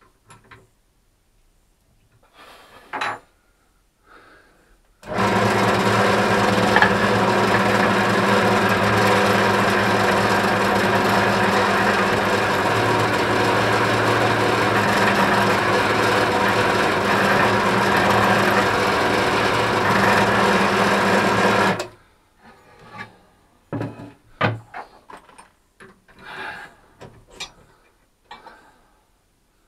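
Bench drill press switched on about five seconds in and running steadily for about seventeen seconds while it drills a pilot hole through plywood, then switched off. Light clicks of the chuck and workpiece being handled come before and after.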